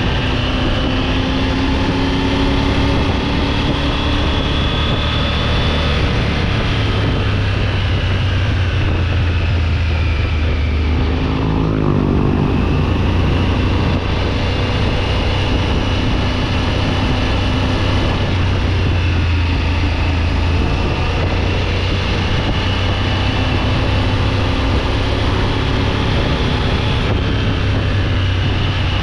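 Triumph Tiger 900 GT Pro motorcycle's inline-three engine running steadily while riding, with wind and road noise. The engine note shifts in pitch briefly about twelve seconds in.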